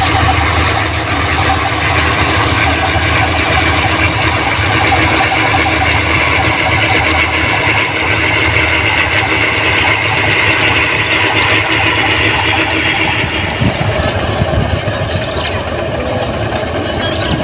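Rice combine harvester running steadily, its engine and machinery making a continuous loud drone. About 13 seconds in, a high whine in the sound fades and the mix shifts lower.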